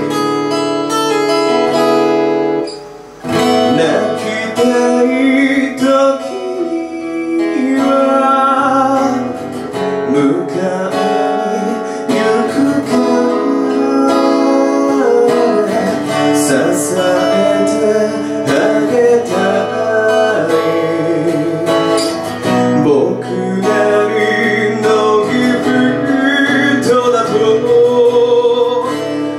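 A male vocalist singing into a handheld microphone, accompanied by acoustic guitar, with a brief break in the sound about three seconds in.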